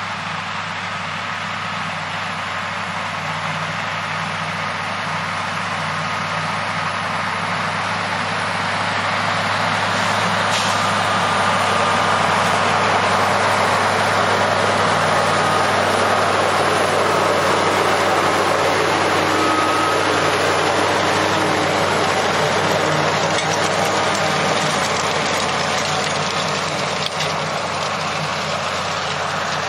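Scania V8 diesel in a converted Steiger Cougar tractor running steadily under load while pulling a cultivator. It grows louder as the tractor comes close, holds for a while, then eases off near the end.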